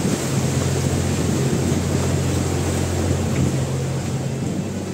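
Canal tour boat's motor running steadily with a low hum, its note shifting slightly near the end, over a hiss of wind and water.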